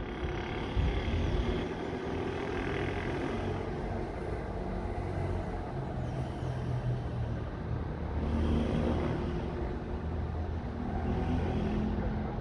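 Aircraft engine running steadily, its low hum shifting in pitch a couple of times.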